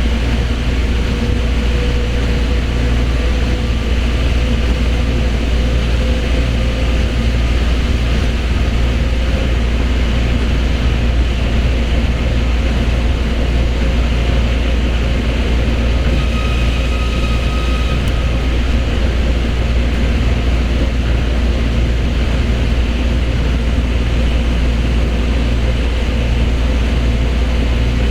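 Osaka Monorail car running between stations, heard from inside the cabin: a steady low rumble of its rubber tyres on the concrete guideway. A higher whine near the start fades away over the first few seconds.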